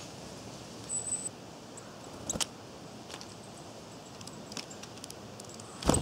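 Outdoor woodland background with a few short crackles and rustles in dry fallen leaves, the sharpest near the end. A brief high chirp, likely a small bird, comes about a second in.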